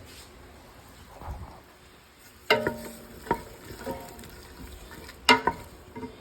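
Spoon stirring in a cooking pot, knocking against the metal twice with a ringing clank and a few lighter taps between, over a faint sizzle of frying food.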